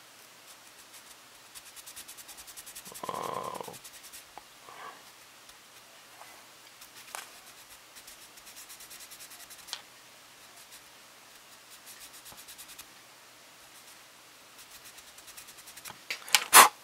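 Sanding stick rubbed in spells of quick back-and-forth strokes over a small plastic model kit part, filing down its locator tabs so the parts fit. A sharp click near the end.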